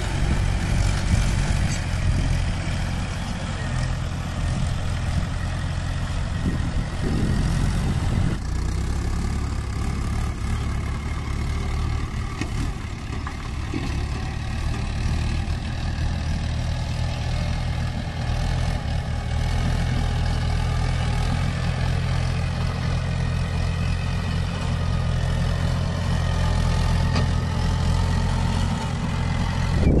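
Mahindra 575 tractor's diesel engine running steadily as it hauls a loaded mud trolley.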